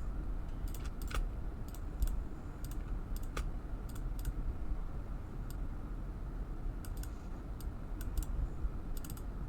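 Irregular clicks of a computer keyboard and mouse, a few a second with short pauses, over a steady low background hum.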